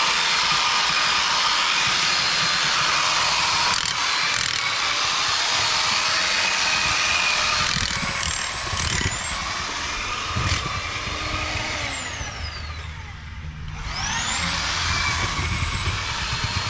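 Power drill driving an auger bit through gravel under concrete: a steady high motor whine that winds down about 12 seconds in and spins back up two seconds later, after the power was cut by an accidental press of the power button.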